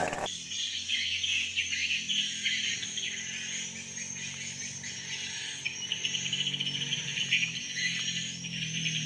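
Insects chirping in a dense, pulsing chorus, with birds calling above them and a faint low steady hum underneath. A chainsaw's sound cuts off abruptly right at the start.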